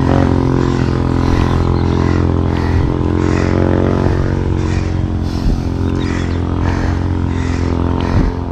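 A motor vehicle's engine running steadily close by, holding one pitch, then fading over the last few seconds.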